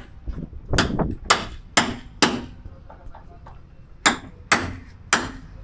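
Hammer blows on a chisel against the sheet-steel roof of a Maruti Omni van, cutting the roof away. Sharp metallic strikes with a short ring: four about half a second apart, a pause of nearly two seconds, then three more.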